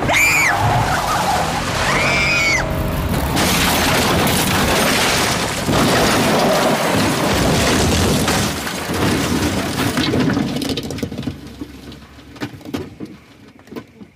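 A car leaving the road and crashing over: two short high shrieks, then about seven seconds of crashing, crunching metal and breaking glass as it tumbles. The noise dies away to scattered creaks and ticks near the end.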